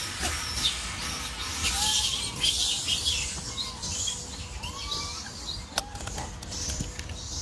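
Birds chirping in short, repeated calls over a steady background hiss, with one sharp click about six seconds in.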